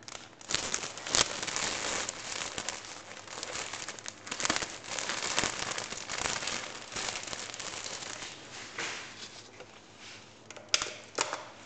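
Plastic bread bag crinkling and rustling as it is handled, with many small crackles, easing off about nine seconds in and followed by a few sharp clicks near the end.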